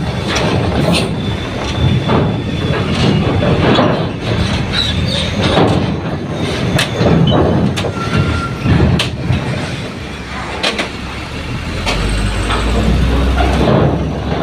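Loaded diesel trucks rolling off a ferry's bow ramp onto the steel linkspan, the steel plates clanking and banging repeatedly under the wheels over the trucks' engine rumble. Near the end a truck's engine rumble grows deeper and louder as it comes close.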